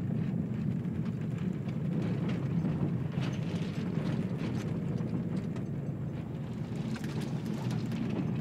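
In-cabin engine drone and tyre rumble of a Subaru Impreza driving along a rough dirt trail, steady throughout, with occasional faint clicks.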